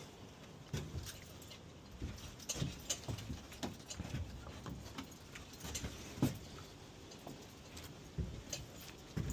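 Irregular light knocks and clicks with a brief metallic jingle now and then, as of tools or hardware being handled.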